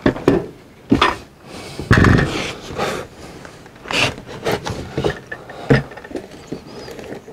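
Irregular thumps and scraping rubs on a plywood roof deck as a cordless circular saw is set down and slid into position, its motor not running.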